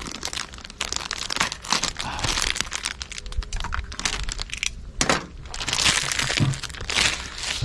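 Plastic packaging crinkling and crackling as it is handled, a dense run of short crackles and rustles.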